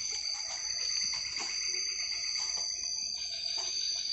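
Chorus of night insects such as crickets, a steady high-pitched trilling at two pitches, with faint scattered soft clicks and rustles.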